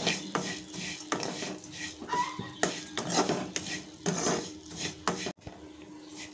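A steel ladle scrapes and knocks against a granite-coated nonstick pan as it keeps stirring roasting vermicelli in ghee, in irregular strokes. The strokes stop suddenly about five seconds in.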